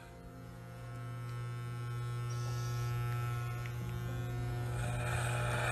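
Electric hair clippers buzzing steadily as they shave hair off a man's head, getting louder over the first couple of seconds.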